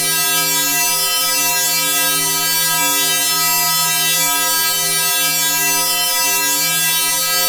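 A sustained, synthesized 'sparkly' chord sound effect: several notes held steadily together, with a bright shimmer in the high range and no change in loudness.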